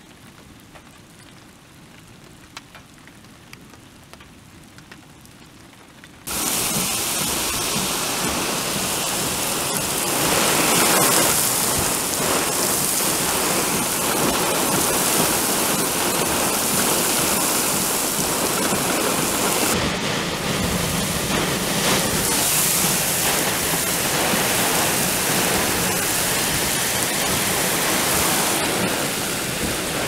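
Heavy thunderstorm rain. For the first six seconds it is a lighter patter with occasional drop ticks. Then it turns abruptly into a loud, steady rushing downpour.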